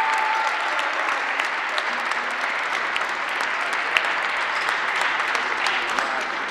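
Audience applauding, with the last held notes of a chord dying away in the first half second.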